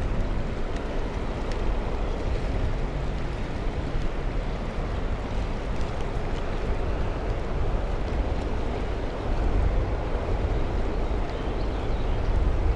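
Steady rush of flowing river water, with wind rumbling on the microphone.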